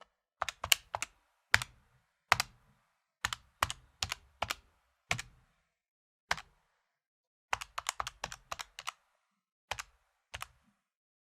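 Electronic calculator keys being tapped one at a time in an irregular rhythm, each press a short sharp click, with a quick run of presses about eight seconds in.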